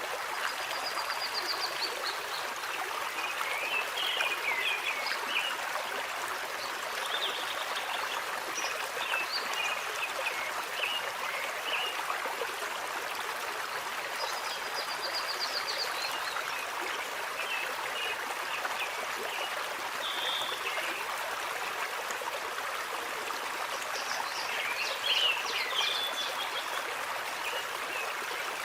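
Steady running stream, with scattered short bird chirps and trills above it.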